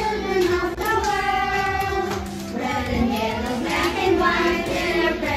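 Music: a song sung by children's voices, with held, wavering notes.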